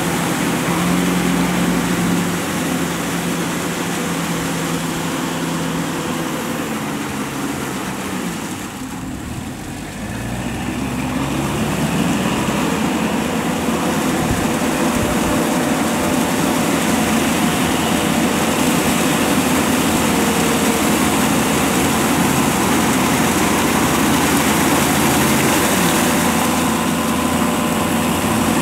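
Tractor engines running steadily while working a flooded rice paddy. The sound dips for a couple of seconds about a third of the way in, then comes back louder as the nearer cage-wheeled tractor draws closer.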